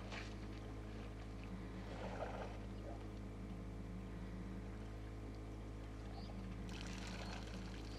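Steady low hum of an idling engine, with faint scuffs and a light splash, and a rise of hiss near the end.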